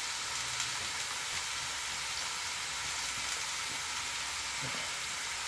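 Hamburger patties sizzling steadily as they fry in a frying pan.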